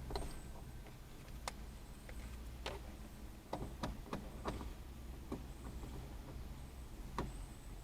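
Low steady rumble heard from inside a stationary vehicle, with about seven irregularly spaced sharp clicks.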